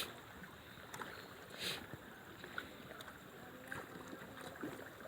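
Faint water-side ambience of water moving and lapping, with a brief hissing splash about a second and a half in.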